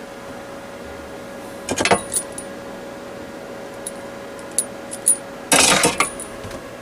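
Scattered light clinks and a short rattle from a glass jar and fuel line being handled while a makeshift fuel tank is set up, over a steady faint hum.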